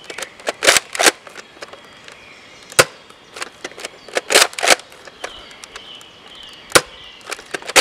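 Nerf Modulus Recon MK II spring blaster being primed and fired over and over: a series of sharp plastic clacks and snaps, some in quick pairs, a few seconds apart.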